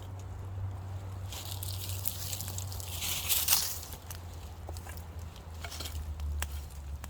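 Rustling for a couple of seconds, with scattered light clicks and taps, over a steady low hum.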